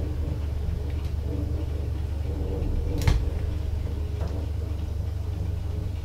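A 1963 Kone elevator car travelling down its shaft: a steady low rumble and hum, with a sharp click about three seconds in and a few fainter ticks.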